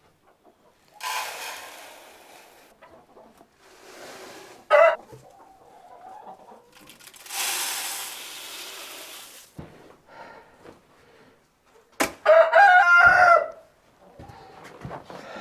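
A rooster crowing once, a call of about a second and a half near the end. Earlier there are a short sharp call and two longer stretches of rustling noise.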